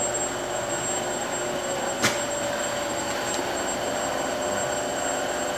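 Space heaters running with a steady whirring hum, with one sharp click about two seconds in.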